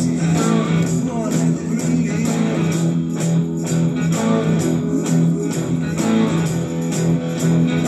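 Semi-hollow electric guitar playing a bluesy rock riff along with a recorded rock song with drums.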